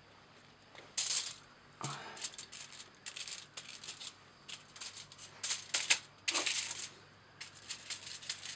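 Hands crinkling aluminium foil and handling small items on a work table: short, irregular crackly rustles with a few light clicks.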